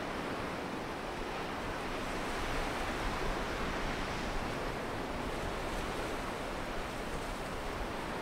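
Steady rushing ambience of sea surf and wind: an even noise with no single wave break standing out.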